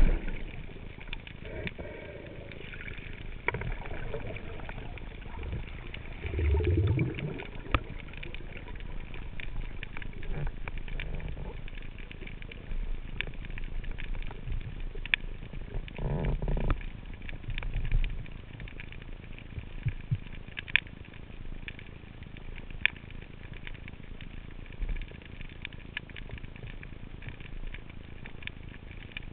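Underwater sound heard through a camera housing: scattered short clicks, with two short, low throaty calls about 7 and 16 seconds in. The calls are a spearfisher's glottis call, a sound made in the throat to draw curious sea bream closer.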